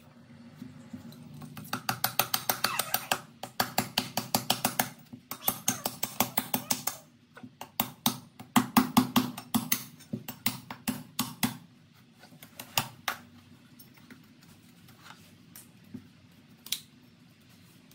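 A knife blade chopping rapidly at the fibrous husk of a coconut on a wooden cutting board, about six to eight strikes a second. After about twelve seconds the strikes slow to scattered single chops.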